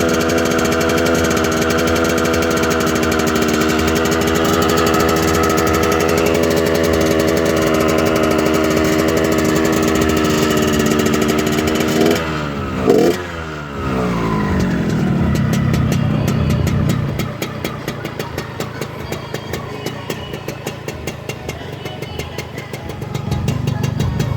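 Yamaha RX-King 135 cc two-stroke single-cylinder motorcycle engine, stock exhaust, tuned for a deep 'ngorok' (snoring) note. It holds steady revs for about twelve seconds, gives a quick blip of the throttle, and the revs fall away to a quieter, evenly pulsing idle that picks up again near the end.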